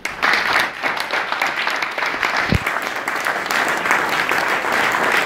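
Audience applauding: dense clapping that starts suddenly and keeps going, with a brief low thump about halfway through.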